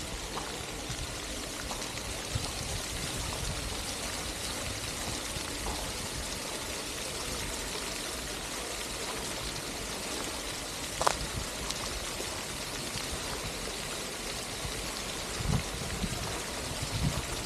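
Garden fountain's water jet splashing into its pool, a steady rushing hiss, with one brief sharp sound about eleven seconds in.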